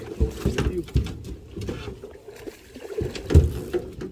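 Low rumbles and thumps of wind buffeting the microphone, the strongest about three and a half seconds in, over the splashing of a hooked sockeye salmon thrashing at the surface.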